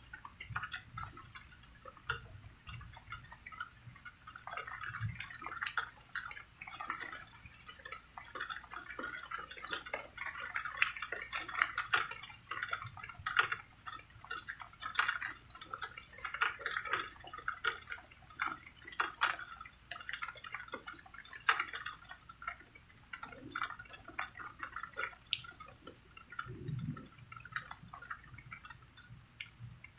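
Rain dripping and falling in many separate, irregular drops, some louder than others. A brief low thump comes near the end.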